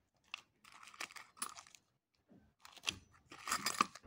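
Small zip-lock plastic bags holding coins crinkling as they are handled and moved into a metal tin, in two bursts of crackling, the second louder, near the end.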